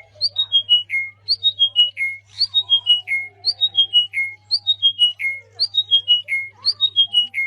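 A bird singing a short phrase of whistled notes that step down in pitch and end on a longer, lower note, repeated about once a second. A faint steady low hum runs underneath.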